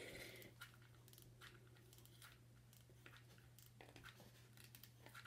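Near silence: faint scattered rustles and light clicks of hands handling craft materials such as moss, over a low steady hum.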